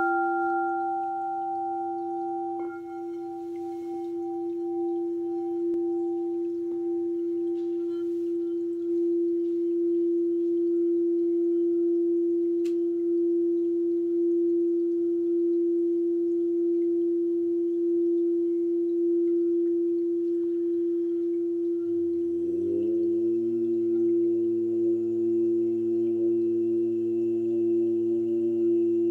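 Singing bowl holding one steady ringing tone after a strike, its higher overtones fading away over the first ten seconds. About 22 seconds in, a low chanted voice slides up in pitch and holds a drone beneath the bowl.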